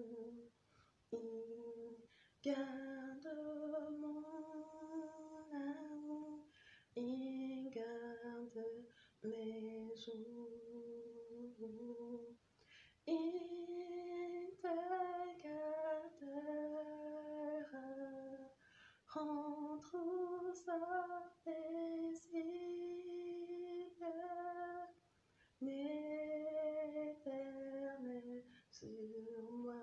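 A woman singing a hymn unaccompanied, in long held notes and slow phrases with short breath pauses between them.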